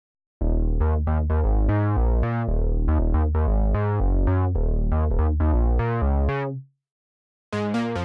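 TAL-U-NO-LX software synthesizer, a Juno-60 emulation, playing its 'FN-Dark Bass' preset: a bass line of short notes, each fading quickly, that stops about six and a half seconds in. Another bass patch starts up near the end.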